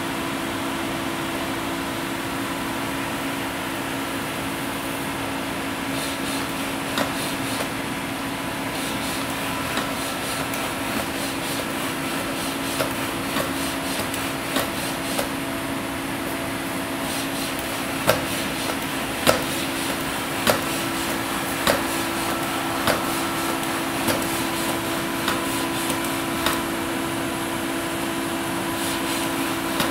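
TORO humanoid robot at work: a steady machine hum with two constant low tones. Light clicks and knocks from about six seconds in, then from about eighteen seconds in evenly spaced knocks about a second apart, the robot's feet stepping as it walks.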